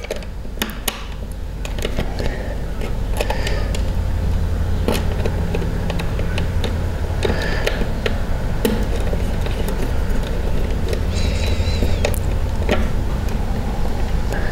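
Small screwdriver working wires into a screw terminal block, scattered light clicks and scrapes, over a steady low hum that builds in about two seconds in.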